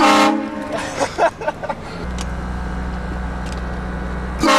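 Loud air horn fitted to a car blasting in two short bursts, one at the start and one near the end, with a steady low hum of the running engine coming in about two seconds in.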